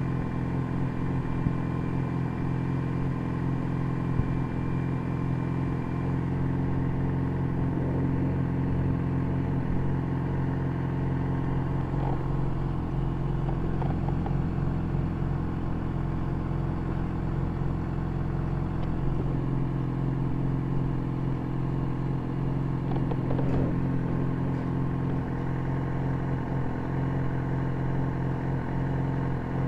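An engine idling steadily, a low even hum that holds constant throughout.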